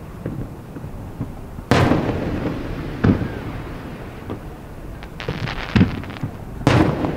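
Aerial fireworks shells bursting: two loud booms with echoing rumble, about five seconds apart, with smaller thuds and a spell of crackling between them.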